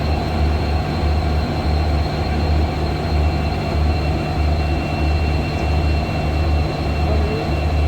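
EMD-built WDP4B diesel-electric locomotives humming with a steady, low, throbbing drone.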